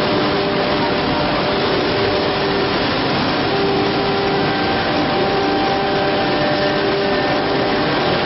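Five-sided CNC drilling machine running: a steady whirring noise with a few humming tones that come and go.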